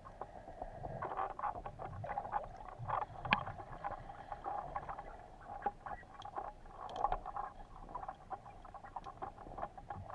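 Underwater ambience heard through a camera housing: many faint, irregular clicks and crackles over a steady low hum.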